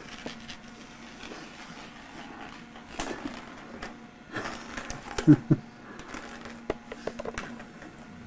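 Plastic bags rustling and crinkling as a kitten plays in them, with scattered small clicks and a faint steady hum. A short, low, voice-like sound is the loudest thing, a little past five seconds in.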